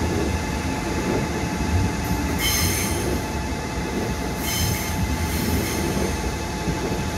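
Electric multiple-unit commuter train passing close by, with a steady rumble of steel wheels on the rails and a faint steady whine. Brief high-pitched wheel squeals cut in about two and a half seconds in and again around four and a half seconds.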